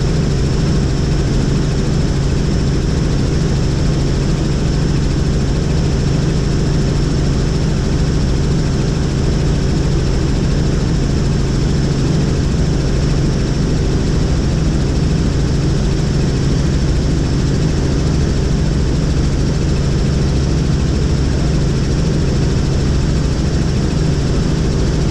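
Helicopter in flight: a steady, loud din of rotor and engine noise with a low hum and a thin high whine above it, unchanging throughout.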